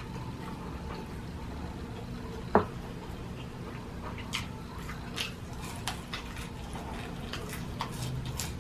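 Close-miked eating sounds: chewing with small mouth clicks scattered through, and one sharper knock about two and a half seconds in.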